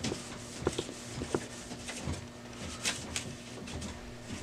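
A lint-free cloth wiping the glass strip of a printer's scanner: soft rubbing and handling noise with a few light clicks and taps against the plastic scanner housing.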